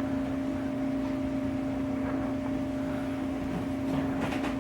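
A running appliance's steady low hum over an even rushing noise, with a few faint soft sounds near the end.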